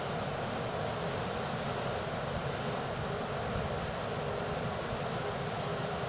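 Hurricane-force wind and heavy storm surf: a steady rush of wind on the microphone mixed with waves breaking on a rock jetty.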